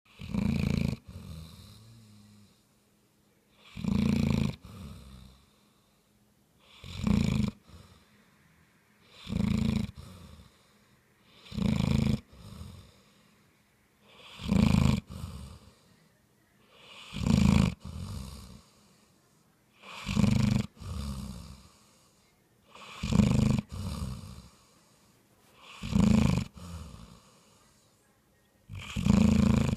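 A bloodhound snoring loudly and steadily, a snore about every three seconds, each one followed by a shorter, softer one.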